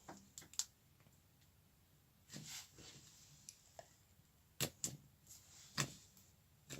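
Slime being squeezed and worked by hand for ASMR, giving scattered sharp little pops and clicks, the loudest cluster coming between about four and a half and six seconds in.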